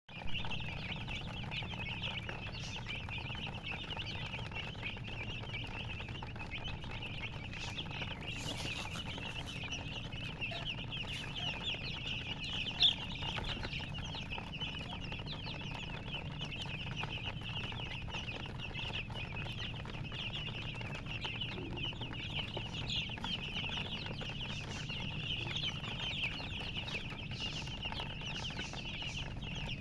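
Many baby chicks peeping continuously, a dense stream of short high-pitched chirps, over a steady low hum. One sharp click about 13 seconds in.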